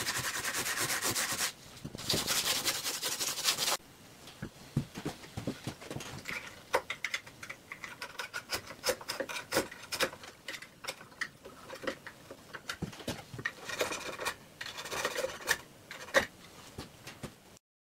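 Hand sanding of a hardened fibreglass-and-resin hull edge with sandpaper: two runs of quick back-and-forth strokes in the first four seconds, then quieter, scattered scrapes and clicks of hand work along the fibreglassed edge.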